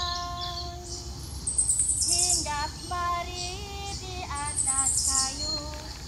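Performance music: a high wordless voice sings slow held notes and short bending phrases, with rapid high chirping in the background.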